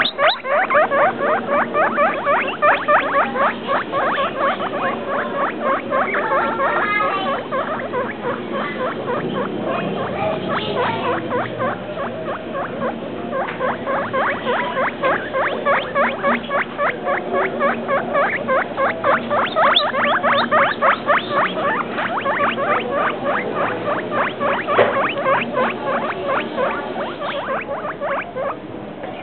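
Guinea pigs squeaking in long runs of short, quick squeaks, about five a second, broken by a few brief pauses.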